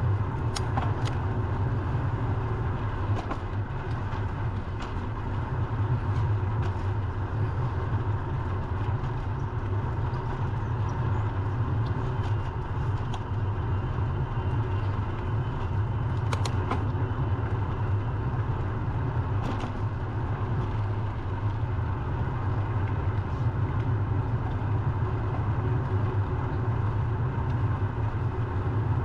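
Steady low rumble of wind on the microphone and road noise from riding a bicycle, with a few faint clicks scattered through it.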